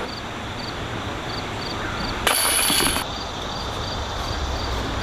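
Disc golf basket chains rattling with a metallic jingle as a thrown disc strikes them, a single burst lasting under a second about two seconds in.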